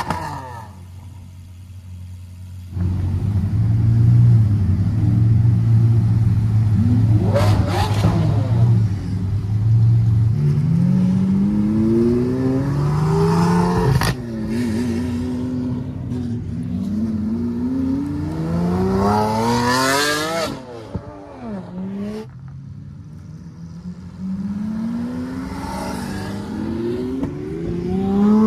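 Lamborghini Aventador V12s on aftermarket exhausts accelerating away one after another. A loud low engine note for the first few seconds, then engine pitch climbing in repeated rising sweeps that break and start lower again as the cars shift up through the gears.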